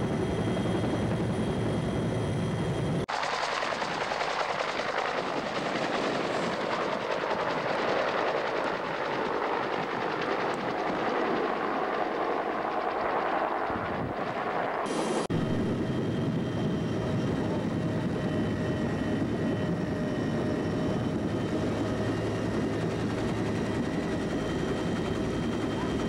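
Bell UH-1 Huey helicopter: steady turbine and rotor noise with fixed high tones, heard inside the cabin. About three seconds in it cuts to an even rushing noise of rotor and wind with little low end. About fifteen seconds in it cuts back to the steady cabin noise.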